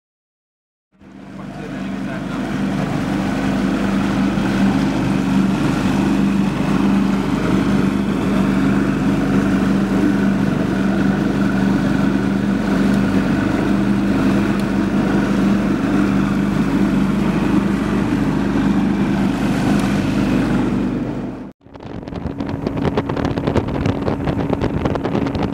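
Motorboat engine running steadily at speed, a constant drone, with wind rushing over the microphone. The sound cuts out for a moment near the end and resumes with heavier wind buffeting.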